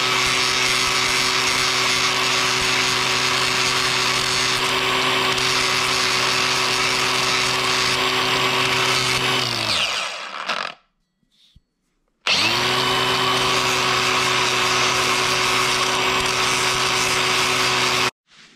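A power tool with a 100-grit sandpaper disc runs at a steady speed, sanding the rust off the ends of a differential spider-gear cross. It winds down about ten seconds in. About two seconds later it starts again and runs steadily until it cuts off near the end.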